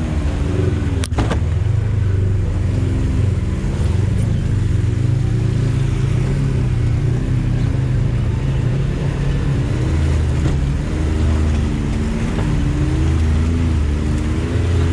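Side-by-side UTV engine running at low speed, its pitch rising and falling with the throttle as it crawls up a rocky creek bed. A single sharp knock comes about a second in.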